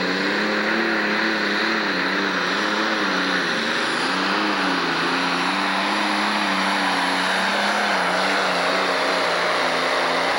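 A pro stock pulling tractor's single-turbo diesel engine runs hard at full throttle under load while dragging the weight-transfer sled. Its pitch wavers slightly, with a faint high whine above the engine.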